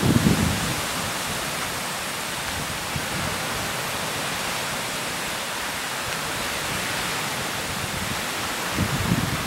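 Steady rushing hiss of wind through the trees and shore grass, with low wind buffeting on the microphone at the start and again near the end.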